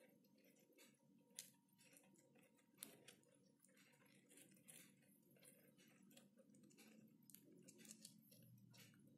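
Faint, irregular small clicks and rustles of baby hamsters scrabbling and picking through loose dry seed mix, with two sharper clicks between one and three seconds in, over a faint steady low hum.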